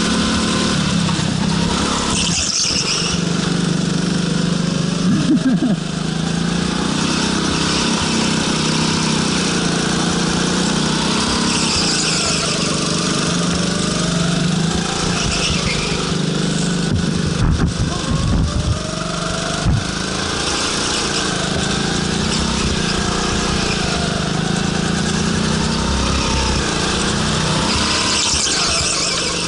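Go-kart's small engine running hard, its pitch rising and falling over and over as the kart speeds up and slows through the corners. A few low knocks come a little past halfway.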